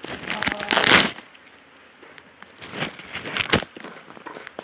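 Footsteps crunching on a coop's wood-chip litter, in a few short bursts, the loudest about a second in.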